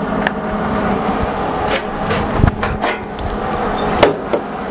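Scattered metal clanks and knocks from tools and parts being handled on a steel welding bench, the sharpest about two and a half seconds in and again near the end, over a steady low hum.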